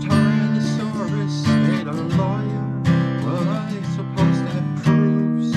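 Acoustic guitar with a Masterbilt headstock, strummed in chords, with a man singing over it.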